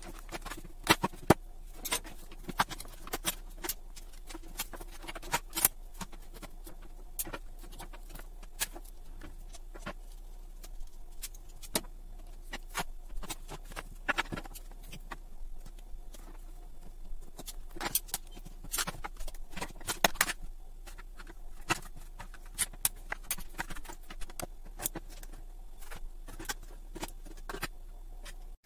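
Irregular clicks, taps and clatter of plastic router and modem casings and hand tools being handled as the devices are pried apart and disassembled, over a steady low hum.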